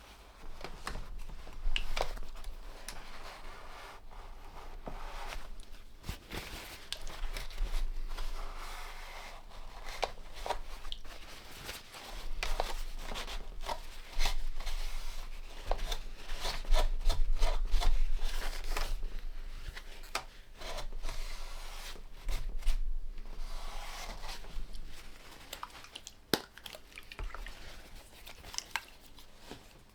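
Rustling, crinkling and scraping with many irregular sharp clicks and knocks: a leaking vintage receiver being wiped clean and handled on the workbench.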